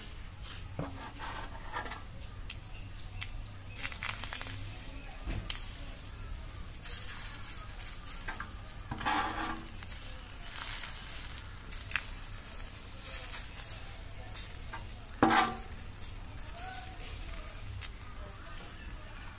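Rice-flour batter sizzling in the hot cavities of a cast-iron chitoi pitha pan as it is poured in from a cup, with a steady hiss that flares up several times. Occasional knocks and scrapes of the cup against the steel batter bowl and pan, the loudest about 15 seconds in.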